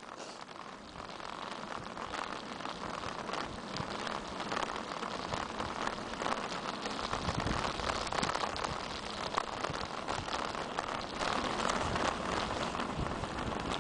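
Steady crackling hiss of a bicycle rolling along a wet asphalt road in damp weather, building a little over the first couple of seconds and then holding.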